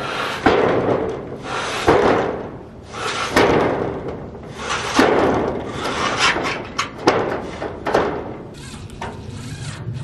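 A series of loud knocks, about one every second to second and a half, each followed by a rattling noise that dies away within a second.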